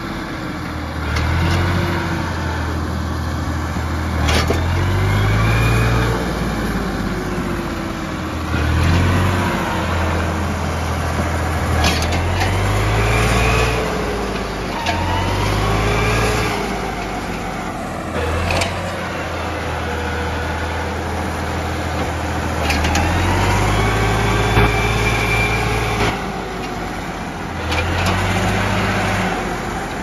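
Tractor engine working under load as it pulls a disc plough through dry soil. Its note rises and falls every few seconds, with a few sharp clanks.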